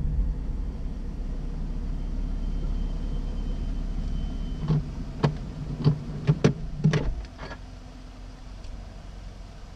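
Car engine rumble heard from inside the cabin as the car slows to a stop, fading over the first few seconds. A quick irregular run of about seven sharp clicks or knocks comes between about five and seven and a half seconds in. Just after, the low rumble drops away to a quieter hum.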